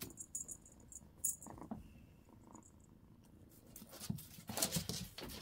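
Ginger kitten purring, a low, faint rumble, while paws and toys scuff and clatter on a wooden floor, with a burst of louder clatters near the end.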